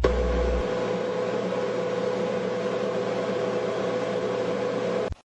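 General Electric clothes dryer running after its front drum bearing and drum glides have been replaced: a steady drone of the turning drum and motor with a hum, cut off suddenly near the end.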